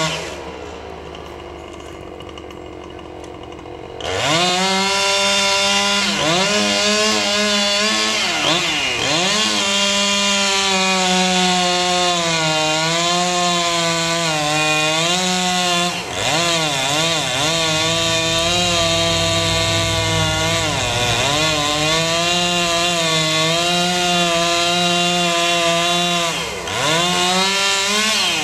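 Chainsaw running: it drops back to idle, then is throttled up to full speed about four seconds in and held there. Its pitch sags and recovers several times as the chain bites into the wood.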